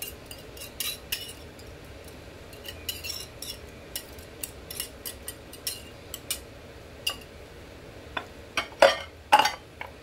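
A wire whisk and a knife scraping and clinking against a bowl and a plate as sauce is scraped out and spread: irregular sharp clicks and taps, the loudest near the end.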